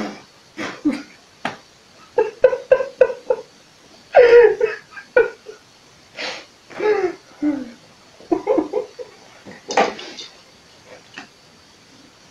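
A man's voice in short, scattered outbursts: wordless exclamations, grunts and laughter, some falling in pitch, with brief quiet gaps between them.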